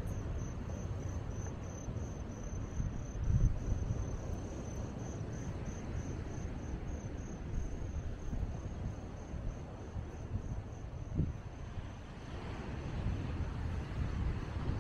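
Crickets chirping in a steady, high-pitched pulse, about three chirps a second, fading out about halfway through, over a low, uneven rumble.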